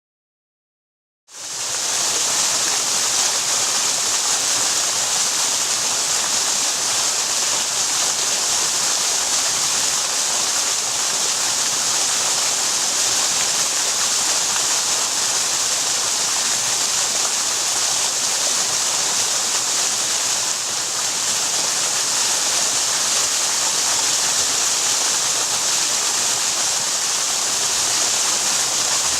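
Waterfall rushing: a steady, even hiss of falling water that sets in suddenly just over a second in.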